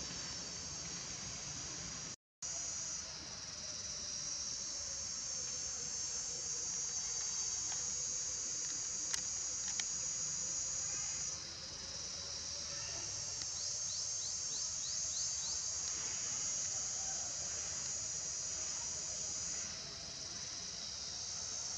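Steady, high-pitched chorus of insects droning in the forest canopy, dipping briefly a few times. The sound cuts out for a moment about two seconds in, and a couple of sharp clicks come near the middle.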